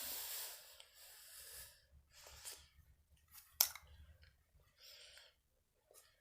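A person breathing close to the microphone while eating candy, with faint mouth and handling noises and one sharp click about three and a half seconds in.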